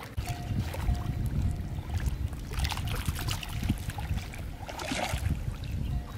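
Lake water sloshing and splashing around bare feet wading into the shallows, over a low, uneven rumble of wind on the microphone.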